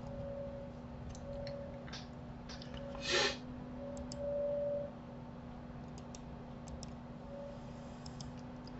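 Faint computer mouse clicks over a steady low electrical hum, with one short burst of noise about three seconds in.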